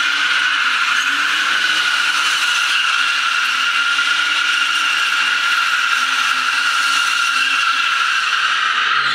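A drifting car's tyres squealing steadily on a concrete floor, one high, sustained screech, with the engine held at high revs underneath, its pitch wavering a little as the car slides in circles.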